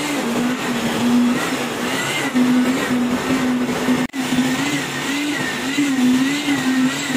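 Concrete mixer truck running while it discharges concrete down its chute: a steady mechanical drone with a whine that wavers up and down in pitch. It breaks off for a moment about four seconds in, then carries on the same way.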